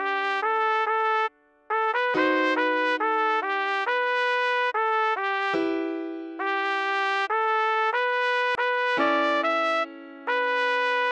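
Trumpet playing a song melody at half speed, short notes moving around B4, C#5 and D5, over a sustained lower chord that changes every few seconds. The melody breaks off briefly about a second and a half in.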